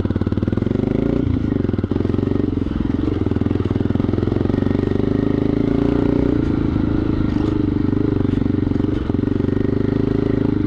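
Dual-sport motorcycle engine running at a steady pace while riding a rough dirt track, its pitch holding nearly level throughout with only brief small dips.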